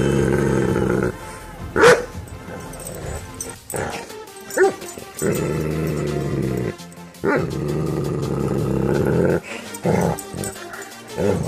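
Doberman barking several times, short sharp barks a few seconds apart, over background music.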